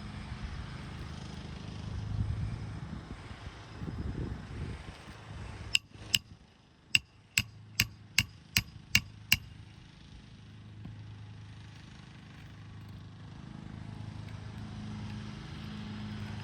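Hammer striking roofing nails, about nine sharp ringing blows at roughly two to three a second, fastening a replacement asphalt shingle. A steady low hum runs underneath.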